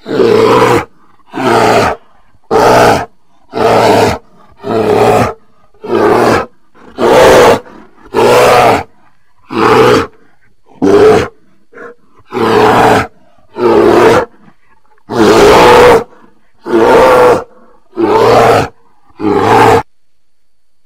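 A bear roaring in a rapid series of about sixteen short, loud roars, roughly one a second, with brief silences between.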